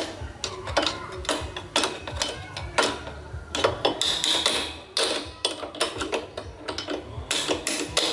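A thin metal tool scraping and clicking against the rusty rear drum brake plate and brake arm of an old motorcycle: irregular scrapes and clicks, several a second, with two longer rasping scrapes about four seconds in and near the end.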